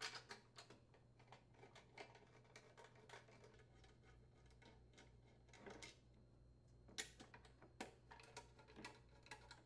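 Faint, irregular clicks and light metallic taps of a hand socket driver unthreading the 3/8-inch blower-housing bolts on a Briggs & Stratton lawn mower engine, with a couple of slightly louder clicks near the end.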